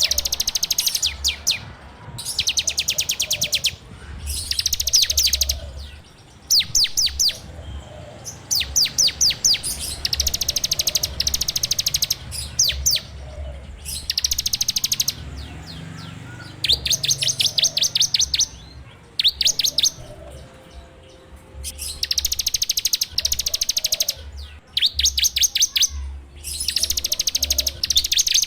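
Prinia (ciblek) singing in a string of rapid, rattling trilled bursts: fast, evenly repeated high notes, each burst lasting one to two seconds, with short pauses between them. This is the dense 'ngebren' delivery used as a lure song to provoke other ciblek into singing.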